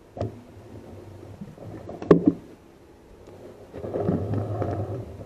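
Handling noise picked up by a rifle-mounted night-vision scope camera as the rifle is moved: a small click at the start, a sharp knock about two seconds in, then rumbling and rubbing near the end.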